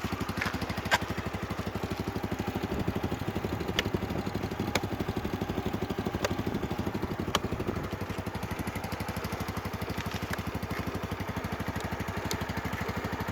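Yamaha Mio scooter's small single-cylinder four-stroke engine idling steadily with an even, rapid putter, running on its own after a jump-start from a car battery. A few sharp clicks sound over it.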